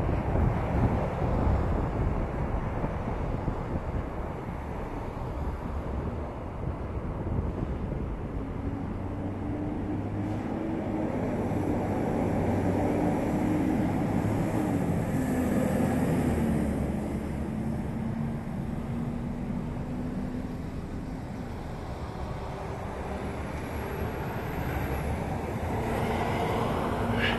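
Wind rushing over the microphone of a camera on a moving bicycle, mixed with the rumble of street traffic. A steady hum runs through the middle and drops in pitch about halfway. A brief high squeal rises near the end.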